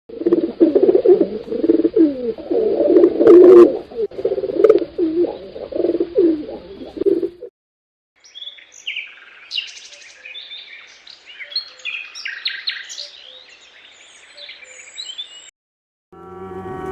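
Birds calling: a loud, dense chorus of low cooing calls for about seven seconds, then, after a short break, quieter high chirping and tweeting.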